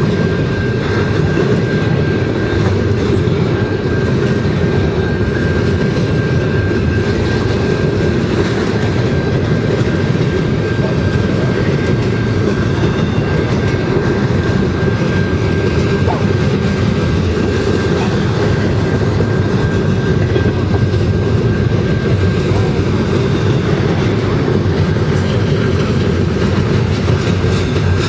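Double-stack intermodal container well cars of a freight train rolling past: a loud, steady rumble of steel wheels on rail with clickety-clack over the joints. A thin, steady high-pitched tone runs under it.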